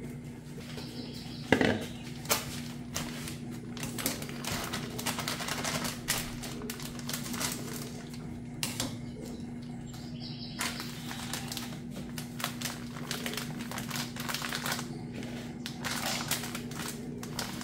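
Kitchen handling sounds: a sharp knock about a second and a half in, then many small irregular clicks and crinkles of a plastic bag of precooked corn flour being snipped open with scissors and handled, over a steady low hum.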